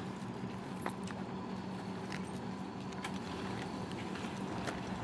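Steady electric hum from a Chichibu Railway 1000 series electric train standing at the platform, with scattered small clicks and knocks.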